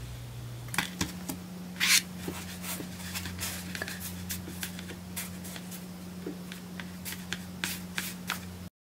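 Many small sharp clicks and short scratchy rustles from hands working Neocube neodymium magnet balls and pressing sand, over a low steady hum. The sound cuts off abruptly near the end.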